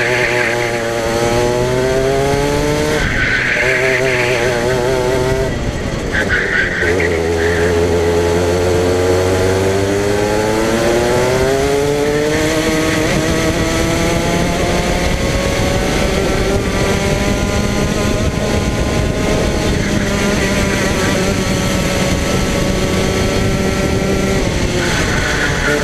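Go-kart engine heard from on board, its pitch climbing as it accelerates and dropping as it slows, several times over. Short squeals come about three seconds in, again about six seconds in, and near the end.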